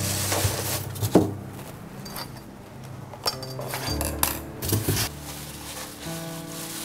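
Kitchenware clinking and knocking as it is handled at a counter: a handful of sharp clinks, the loudest about a second in and a cluster near the middle, over soft background music.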